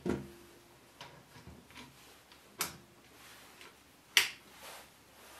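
A few sharp clicks and light knocks over quiet room noise, the three loudest about a second and a half apart, the last of them the loudest.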